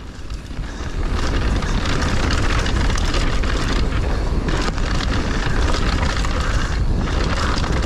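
Wind rushing over an action camera's microphone, with the tyre noise and many small knocks and rattles of a Dartmoor Hornet hardtail mountain bike riding fast down a rough trail. It is somewhat quieter for about the first second.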